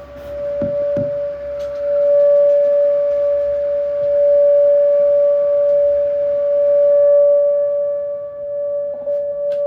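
Outdoor tornado warning siren sounding a steady, unwavering tone, growing louder over the first couple of seconds and then swelling and easing slowly. Two short low thumps come about a second in.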